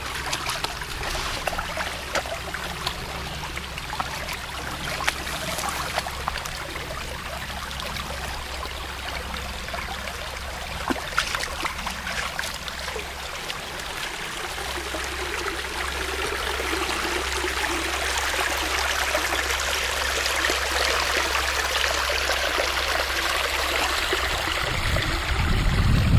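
Shallow brook water trickling, with small splashes of a dog wading through it, growing gradually louder. A low rumble comes in near the end.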